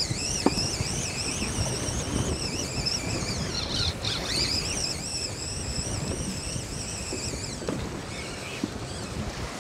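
Wind buffeting the microphone and water lapping against a boat, with a high wavering whine that stops about three-quarters of the way through.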